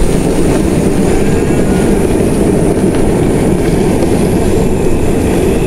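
Steady low rumble of a moving motorcycle, mixed with wind buffeting the microphone.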